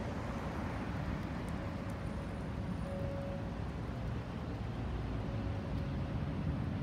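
Distant Boeing 737-800 jetliner flying high overhead, its CFM56-7B turbofans heard as a steady low rumble.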